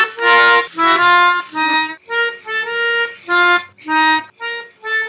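Intro music: a melody of short, separate held notes, two or three a second, with brief gaps between them.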